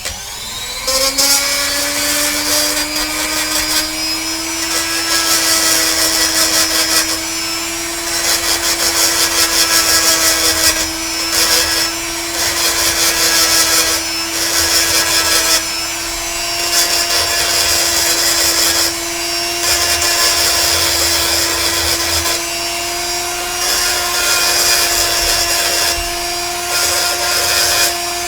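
Handheld rotary tool with a blue metal-grinding bit spinning up about a second in, then running at a steady high speed while grinding a pewter cast. The grinding noise swells and eases every second or two as the bit is pressed on and lifted off the metal.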